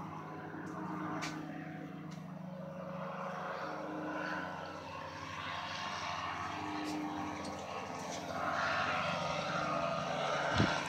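Gyrocopter engine and propeller droning steadily, growing gradually louder as the aircraft approaches. A short thump comes near the end.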